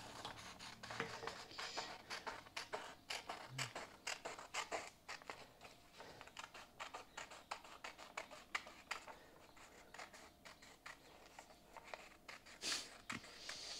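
Scissors cutting through a sheet of paper: a faint, irregular run of short snips.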